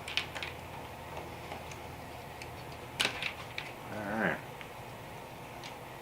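Plastic LEGO pieces clicking and tapping as an octagon piece is fitted onto a set of turntables: a few light clicks at the start and a sharper click about three seconds in.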